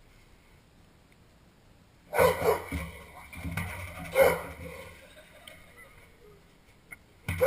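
A dog barking in short, loud bursts: a cluster of barks about two seconds in, more around three and a half and four seconds, and another pair near the end.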